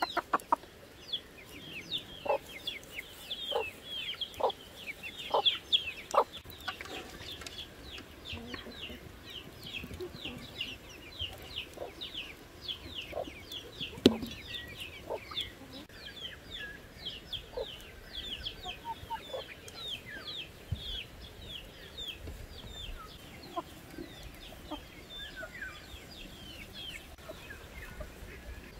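Chickens clucking, over a steady run of quick, high bird chirps. A single sharp knock about halfway through.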